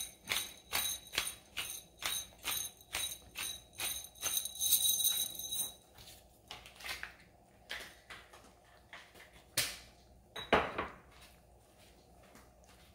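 Pepper mill grinding black pepper, a steady run of metallic clicks about three a second, then a few scattered clicks and a single louder knock near the end.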